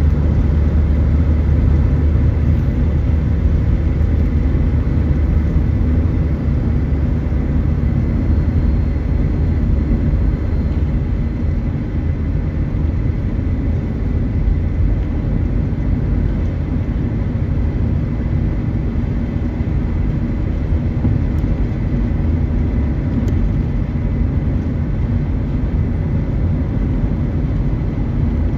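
Steady road and engine noise inside a moving car's cabin: a deep, even rumble, heavier for the first ten seconds or so and then a little lighter.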